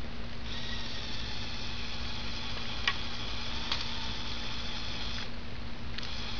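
Small Lego Power Functions electric motor whining as it runs through its gearing. It starts about half a second in, stops a little after five seconds and starts again near the end, with a couple of faint clicks while it runs, over a steady hiss.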